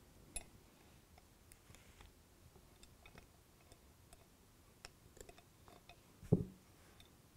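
Faint scattered clicks and ticks of a metal probe and fingers working the small plastic gearbox casing and drive shaft of a model locomotive chassis, as the casing is eased open to seat the shaft. A short low thump about six seconds in.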